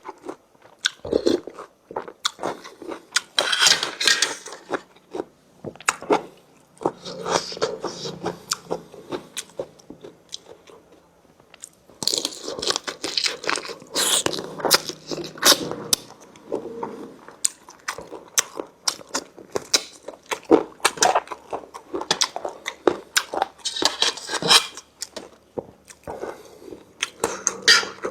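A person chewing and biting into crunchy food, crunch after crunch, with a short lull in the middle.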